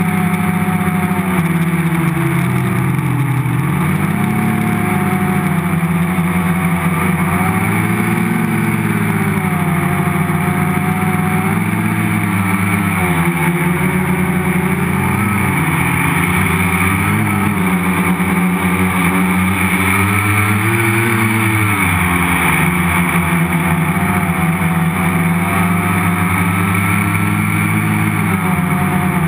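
Multicopter's electric motors and propellers buzzing, heard close from the camera mounted on the frame, their pitch sliding up and down as the flight controller changes motor speed, with several dips in pitch along the way.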